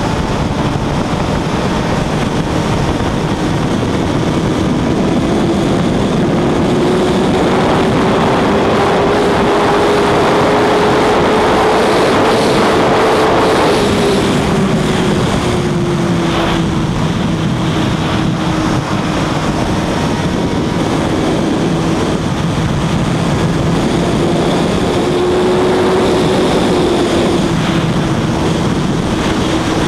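Suzuki GSX-R1000 inline-four engine running at high speed, around 250 km/h, under heavy wind rush. The engine note climbs gradually for the first dozen seconds, eases off a little and then holds steady.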